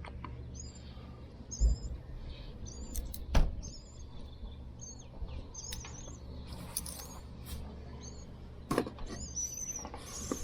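Starling nestlings begging from inside a dryer vent: repeated short, high chirps, set off by the vent being disturbed. A few sharp knocks come through, the loudest about a third of the way in.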